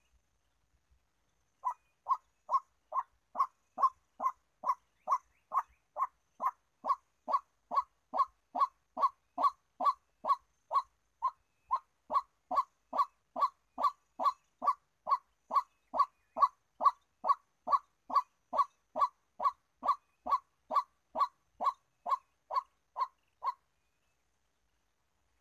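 Male white-breasted waterhen calling a long, even run of one short, repeated note, about two and a half a second, starting about two seconds in and stopping near the end.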